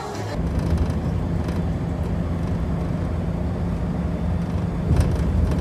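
Steady low rumble of a moving road vehicle heard from inside the cabin as it crosses a bridge, with a brief knock about five seconds in.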